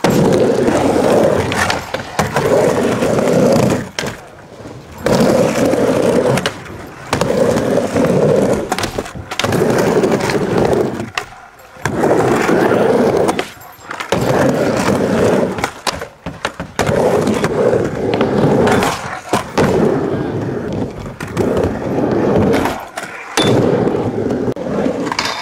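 Skateboard wheels rolling back and forth across a ramp, in repeated passes a second or two long with short quiet gaps between them.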